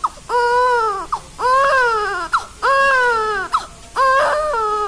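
Newborn baby crying: four wails of about a second each, every one falling in pitch at its end. This is a newborn's first cry as it takes its first breaths of air.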